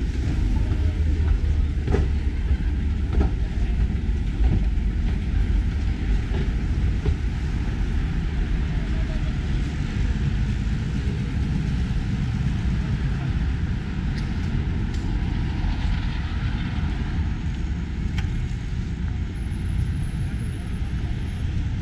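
Steady low rumble of city street traffic noise.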